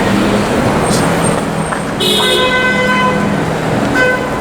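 Street traffic noise with a vehicle horn honking about halfway through for about a second, then a short second toot near the end.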